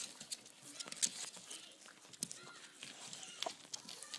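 Five-week-old puppies mouthing and chewing a rubber Kong toy on a tile floor: irregular small clicks and knocks, with a few soft puppy grunts.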